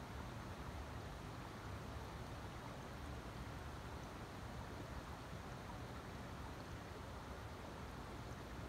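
Heavy torrential rain falling steadily: an even, unbroken hiss of a downpour.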